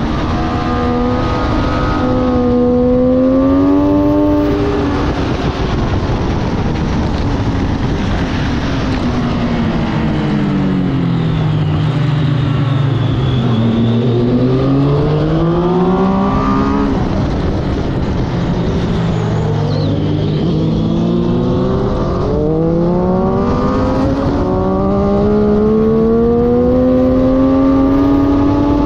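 Motorcycle engine at racing speed, over a steady rushing noise. The engine shifts up twice with quick drops in pitch in the first few seconds, falls in pitch for several seconds as the bike slows, rises and dips again mid-way, then climbs steadily under acceleration near the end.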